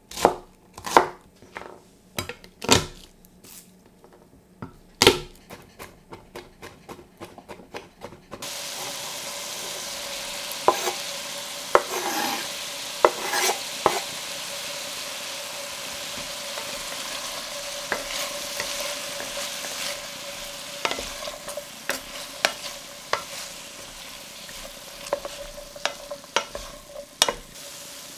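Knife chopping onion on a wooden chopping board in quick, irregular strikes. About eight seconds in, this cuts to a sauté pan of chicken, chorizo and onion frying with a steady sizzle, with scattered scrapes and clicks of a spoon stirring in the stainless steel pan.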